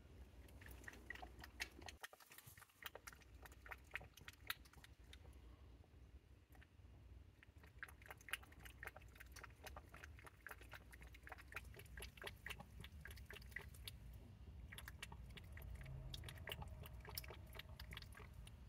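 A cat chewing food: a faint run of many small, sharp, irregular crunches.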